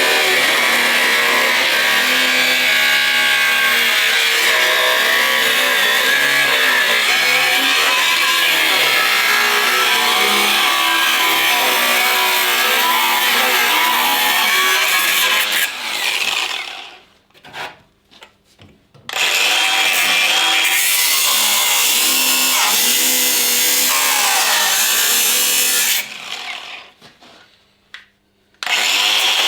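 Angle grinder cutting into rusted car body sheet metal, its pitch wavering as it bites under load. It stops twice for a few seconds, then starts again.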